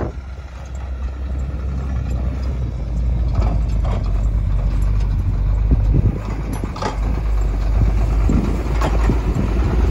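Duramax diesel engine of a GMC C7500 medium-duty truck running as the truck drives across a field, a deep rumble that grows louder over the first few seconds as it comes closer.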